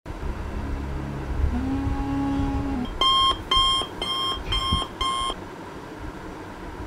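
Wake-up alarm beeping five times, about two beeps a second, then stopping. Before the beeps there is a low hum.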